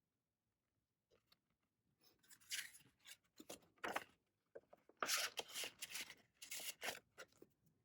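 Faint rustling and sliding of paper and plastic as album contents such as photo cards, postcards and their packaging are handled, in several short bursts starting about two seconds in.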